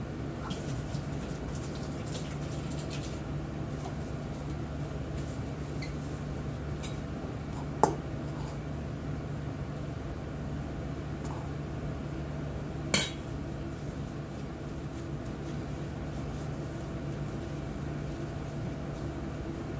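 Light clinks and scrapes of a utensil against a stainless steel bowl of sushi rice as the rice is scooped and handled. There are two sharper metallic knocks, about eight and thirteen seconds in, the second ringing briefly, over a steady low hum.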